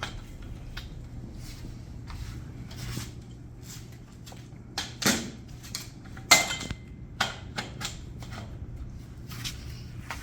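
Tent frame tubes and corner fittings being pushed and knocked together during assembly: scattered sharp clacks, the loudest about six seconds in, with a short metallic ring after it.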